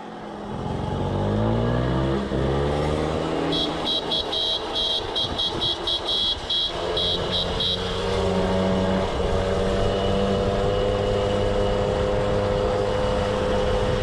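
Two-stroke moped engine under way, rising in pitch as it speeds up over the first few seconds, then running at a steady speed. A run of short, high beeps repeats for several seconds in the middle.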